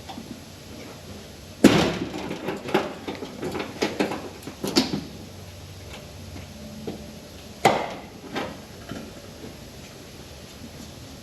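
A run of sharp knocks and clatters lasting about three seconds, then a single sharp knock a few seconds later and a weaker one just after: hard objects being struck or handled in a workshop.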